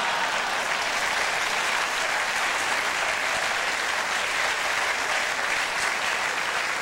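Studio audience applauding: a steady, dense clapping.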